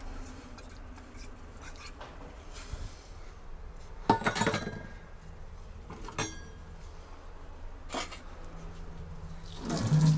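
Stainless steel bowl and pot clinking a few times as raw chicken pieces are lifted out of the bowl and put into the pot of stock. There are two sharper metallic clinks, about four and six seconds in, the second with a short ring.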